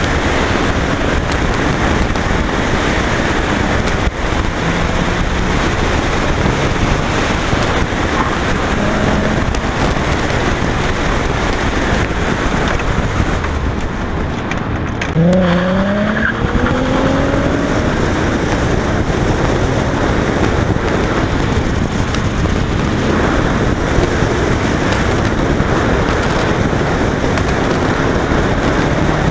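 Nissan 370Z's 3.7-litre V6 with an aftermarket catback exhaust pulling hard around an autocross course, heard from inside the cabin over heavy road and wind rumble. About halfway through the noise dips briefly, then the engine note climbs sharply as the car accelerates.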